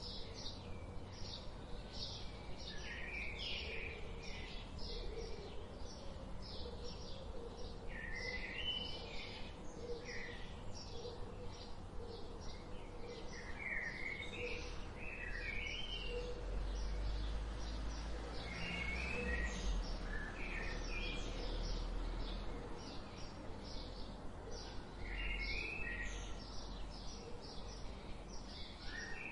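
Birds chirping and singing: quick, short, high chirps at about two a second, with warbling phrases breaking in every few seconds. A low rumble swells in the background through the middle.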